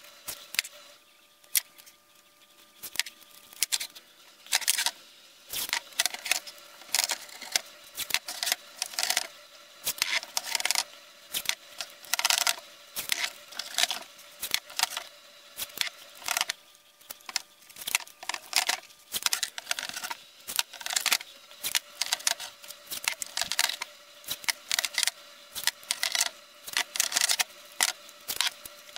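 Blue painter's tape being pulled off the roll and torn in short, irregular crackling rips while it is wrapped around the grinder's stone to mask it.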